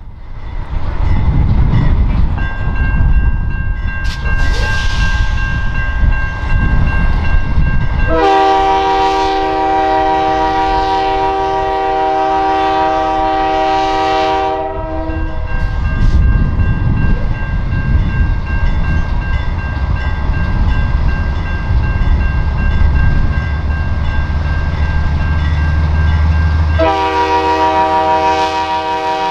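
Amtrak P32-8 diesel locomotives leading a ballast work train, running past with a low engine rumble that grows heavier shortly before the end. The lead unit sounds its horn, a chord of several notes, in one long blast of about seven seconds, and starts another blast near the end.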